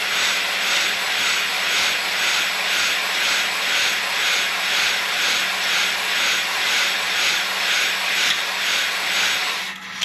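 A DeWalt cordless drill spins a stone cylinder hone in the oiled cast-iron bore of a Ford FE390 engine block. The running drill and the grinding stones make a steady whirring hiss that swells and fades about three times every two seconds as the hone is passed up and down the bore. It stops just before the end.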